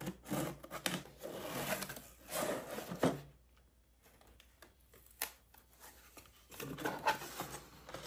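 Product box and packaging being opened and handled by hand: bursts of scraping and rubbing, with a few sharp clicks and a quieter stretch in the middle.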